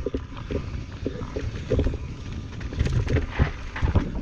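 Wind buffeting the microphone of a chest-mounted action camera while a Transition Patrol carbon mountain bike rattles and clatters over rough trail, with several harder knocks about three to four seconds in.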